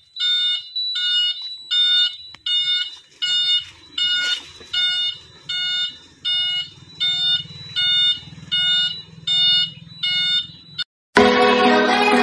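Electronic beeper on an e-rickshaw sounding a steady series of short, pitched beeps, about four every three seconds, until just before the end. Background music comes in near the end.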